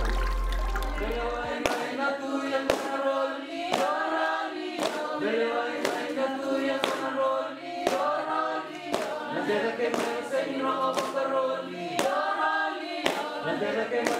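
Group of voices singing a chant together at a Fijian kava ceremony, with a sharp clap about once a second.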